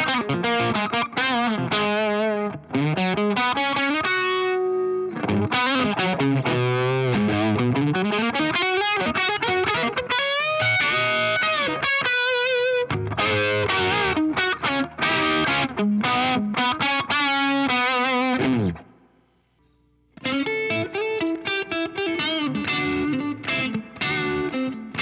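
Electric guitar played through an MXR Duke of Tone overdrive pedal into a Laney Lionheart Loudpedal with Vintage 30 cabinet impulse responses: overdriven riffs and single-note lines with bent, wavering notes. About three-quarters of the way through the playing stops for about a second, then a new phrase begins.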